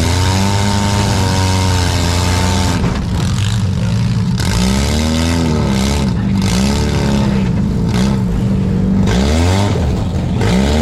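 Four-cylinder demolition derby car engines revving up and down again and again, the pitch rising and falling every second or two, over a steady wash of noise.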